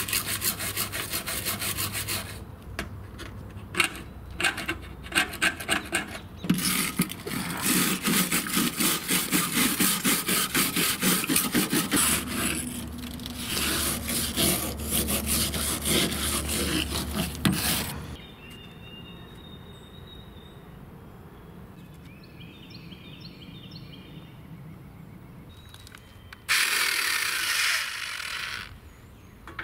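Hand scrubbing of an old painted aluminum boat hull, in long runs of rapid back-and-forth rubbing strokes, with pauses between runs. Near the end a cordless power drill runs for about two seconds against the hull.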